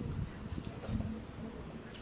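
Close-miked eating sounds: chewing and mouth noises over beef bulalo, with a couple of sharp clicks.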